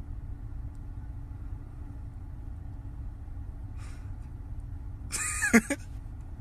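A steady low rumble, with a short, shrill cry falling sharply in pitch a little after five seconds in.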